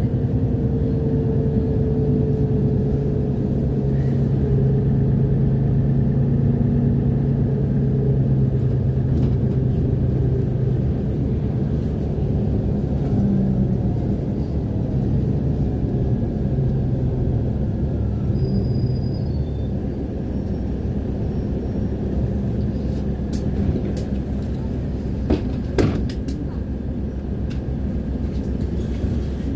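A city bus heard from inside its cabin, the engine and drive drone falling slowly in pitch as the bus slows to a stop, then settling to a quieter idle rumble. A few sharp knocks come near the end.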